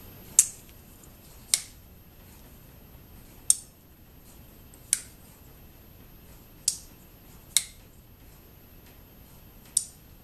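Chris Reeve Umnumzaan folding knife worked open and shut: seven sharp clicks at uneven intervals as the blade snaps into and out of its lock, while the pivot tension is set.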